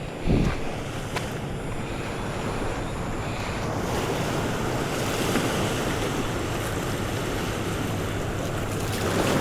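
Surf washing on the shore, with wind buffeting the microphone. A single low thump about a third of a second in.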